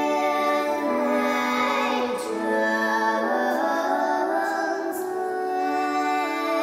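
Background music: a slow melody of long held notes that change pitch about once a second.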